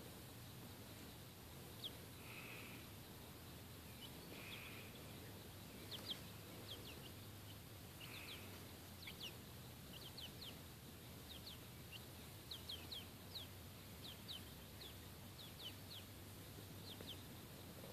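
Young chickens peeping softly: short, high, downward-sliding peeps, a few at first and then two or three a second, over a faint steady background hum.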